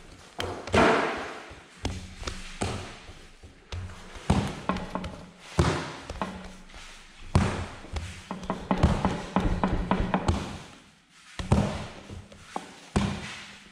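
Long wooden rolling pin rolling back and forth over a large sheet of dough on a worktable, with uneven rumbling strokes and knocks and thuds as the pin is pressed and set down, roughly once a second.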